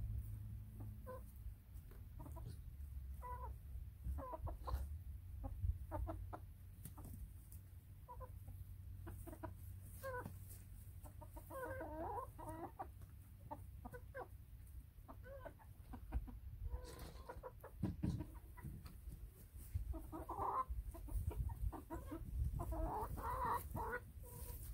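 A small flock of hens clucking in short, scattered clucks, with bouts of longer, drawn-out calls around the middle and again near the end.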